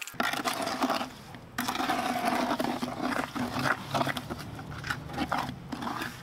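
Hand trowel stirring and scraping a wet Portland cement and sand slurry in a plastic bucket, with a brief pause about a second in.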